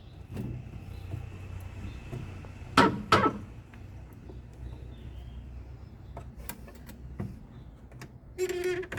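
Electrolux LTE09 washing machine's agitation mechanism running with its underside open: a steady low motor hum with a faint high whine, and two sharp knocks about three seconds in. The mechanism is locked and only makes noise, which the technician puts down probably to the ratchet bearing.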